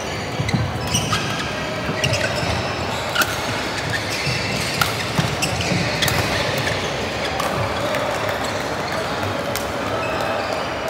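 Badminton doubles rally: sharp racket strikes on the shuttlecock about once a second, with footfalls on the wooden court, over steady hall noise. The strikes stop shortly before the end as the rally finishes.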